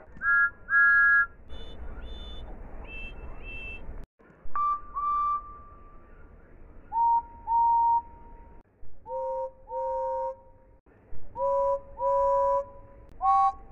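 A series of different steam locomotive whistles, one after another, each sounded as two short blasts. Some whistles give a single note and some are chime whistles sounding two notes at once. Each blast slides up briefly into pitch as it starts.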